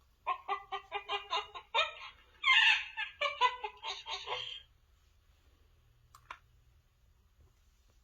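Sound chip of a children's novelty book playing a recorded monkey chattering through its small speaker: a quick string of short calls for about four and a half seconds, with a louder shriek in the middle. A single click follows a couple of seconds later.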